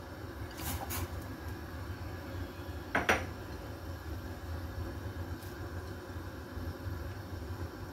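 Kitchenware clinking as rice noodles are tipped from a bowl into a stainless steel saucepan of broth: two light clinks about a second in and one sharper knock about three seconds in, over a steady low hum.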